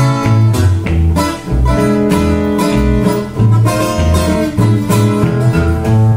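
Steel-string acoustic guitar played solo, with a steady alternating thumb-picked bass line under strummed chords in a chugging rhythm.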